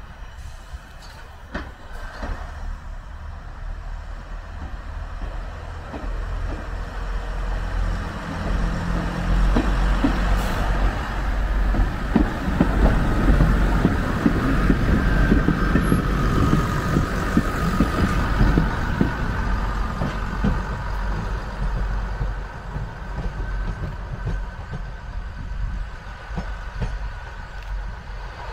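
First-generation diesel multiple unit passing close by, its diesel engines running with a low rumble that builds to a peak about halfway through and then fades as the train draws away down the line.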